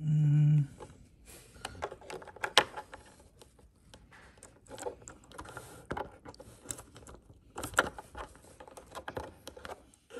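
Small plastic clicks, taps and rattles of a cable plug being handled and pushed into a soundbar's recessed plastic connector panel, irregular throughout. A short loud hum opens the first half second.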